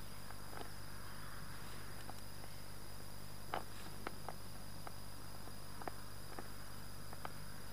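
Damp groundbait being squeezed and pressed by hand around a small feeder cage, giving a few scattered soft clicks over a steady hiss. The sharpest click comes about three and a half seconds in.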